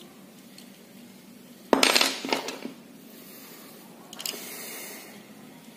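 A brief burst of metallic clatter with a few quick clinks about two seconds in, from small metal parts knocking as an air-rifle pellet magazine is handled while its bolt is refitted. A short, softer scrape follows about two seconds later.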